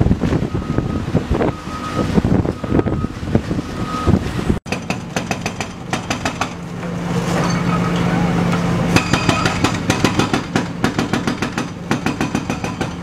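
Heavy demolition machinery at work: knocks and crashes of bricks with a short beep repeating about once a second. After an abrupt cut, a large diesel engine of a construction machine runs steadily, with a fast rapid clatter for a few seconds near the end.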